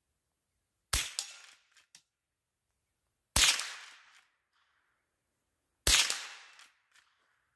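Three shots from a Marlin 39A .22 LR lever-action rifle, about two and a half seconds apart, each a sharp crack with a short fading tail. Fainter clicks follow each shot as the lever is worked to chamber the next round.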